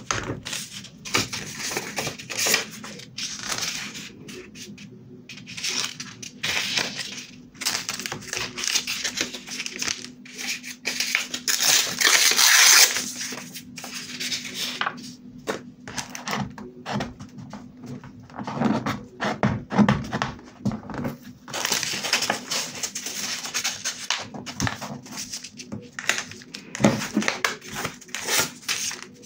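Close-up paper crafting sounds: paper rustling and crinkling under the hands, a paper sticker being peeled and pressed down onto a journal page, with small taps and clicks. The loudest rustle comes about halfway through.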